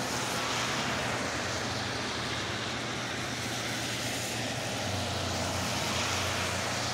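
Road traffic on a wet street: a steady hiss of tyres on wet pavement and engine noise as cars pass.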